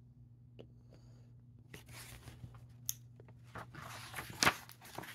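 A picture-book page being turned by hand: paper rustling and crackling in short bursts, with the loudest crackle near the end.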